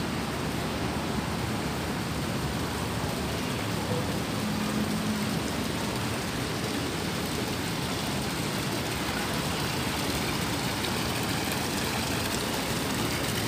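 Fish pond's water feature running: a steady, even rush of splashing water.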